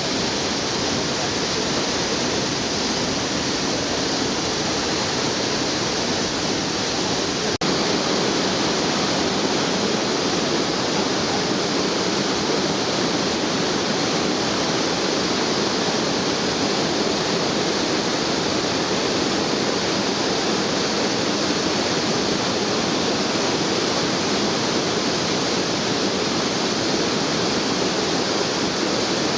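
Minoo Falls, a waterfall, pouring in a loud, steady rush of falling water, with a brief click about eight seconds in.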